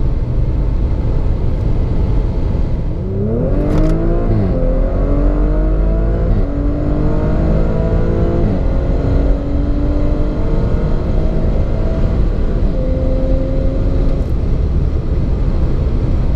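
MTM-tuned Audi RS5's 2.9-litre twin-turbo V6 under hard acceleration at high speed. A low rush of road and wind noise comes first. About three seconds in the engine note rises sharply, then climbs in each gear and drops back at several upshifts.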